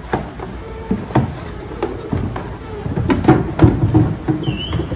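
Hand shovels scooping and tipping imitation coal lumps into a play locomotive firebox: irregular knocks and clattering, busiest and loudest about three seconds in.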